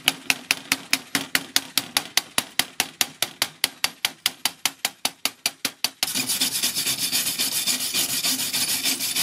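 Chipping hammer knocking the slag off a fresh arc-weld bead on steel plate, rapid even taps about five a second. About six seconds in it gives way to a wire brush scrubbing the bead, a continuous harsh scratching.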